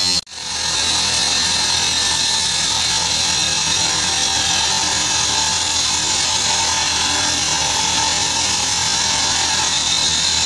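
Angle grinder cutting through steel, running steadily with a constant high whine. The sound drops out for a moment right at the start, then comes back.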